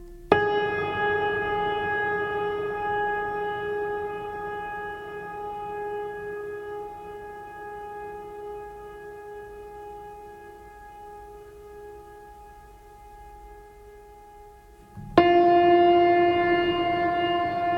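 Two long horn blasts, like a ship's whistle. The first starts abruptly and slowly fades over about fifteen seconds; a second, slightly lower-pitched blast starts suddenly near the end.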